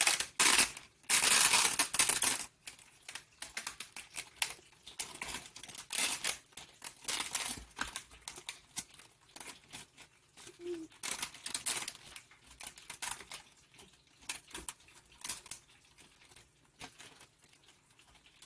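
Plastic blueberry clamshell crinkling and crackling as its seal label is peeled off and it is handled, loudest for the first two and a half seconds or so. After that come scattered lighter crinkles and clicks as berries are picked out of the plastic tub.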